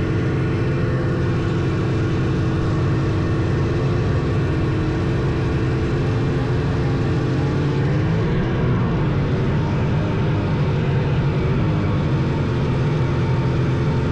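Vintage snowmobile engines running steadily at speed on the trail. About eight seconds in, the pitches of the engines waver and cross as throttle and speed change.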